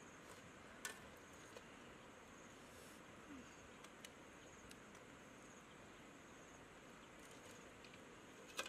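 Quiet ambience with a faint high insect trill, broken by a few sharp clicks of metal tongs, the loudest near the end.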